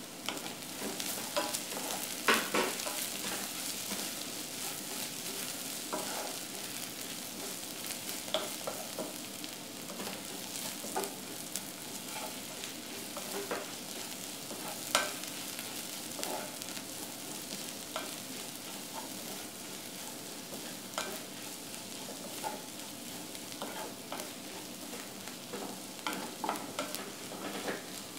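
Sliced onions with crushed garlic and ginger sizzling in hot oil in a pot, sautéed until browned, while a wooden spatula stirs them, scraping and knocking against the pot. The loudest knocks come about two seconds in and about halfway through.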